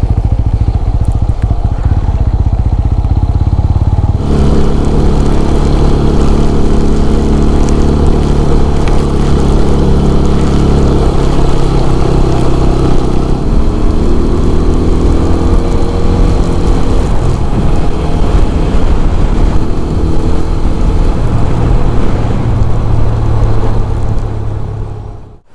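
TVS Apache RTR 200 4V's single-cylinder engine running on the move, under heavy wind rush on the helmet microphone. The engine note rises and falls with speed, and the sound falls away just before the end as the bike slows to a stop.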